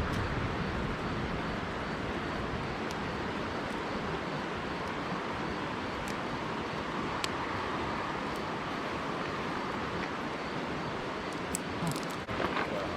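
A small campfire of sticks crackling, with a few sharp pops scattered over a steady rushing background, and a short cluster of small sounds near the end.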